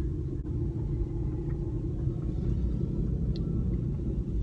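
Steady low rumble of a car heard from inside the cabin, with a faint steady hum over it.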